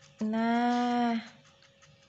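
A hungry young kitten meowing once: a single drawn-out cry about a second long, near the start.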